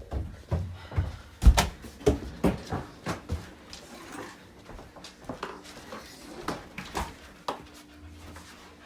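A run of irregular knocks and thumps, the loudest about a second and a half in, thinning out after about three and a half seconds.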